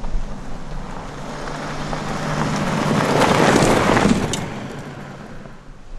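2018 BMW X3 driving past on a dirt track: its tyre and engine noise swell as it approaches, peak as it passes close about three and a half seconds in, then fade away.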